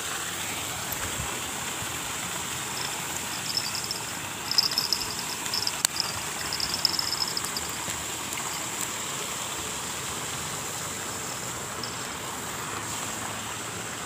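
Steady rush of the flowing river under a constant high insect drone. Between about three and seven seconds in there is a stretch of irregular, crackly high chirping.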